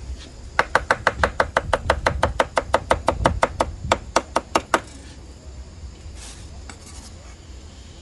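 Large kitchen knife chopping fresh herbs on a wooden cutting board: a rapid, even run of knocks, about seven a second, which stops about five seconds in.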